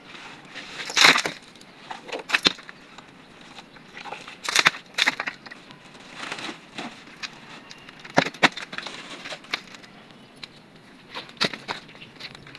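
Crumbled concrete and soil being raked by gloved hands out of a concrete tomb niche: irregular scrapes, crunches and clatters of rubble, several sharp ones a second or so apart.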